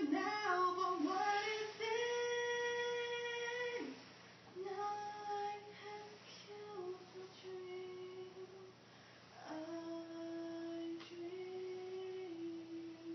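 A female voice singing slowly and unaccompanied, with long held notes. There is a short break about four seconds in, and the last note is held for several seconds near the end.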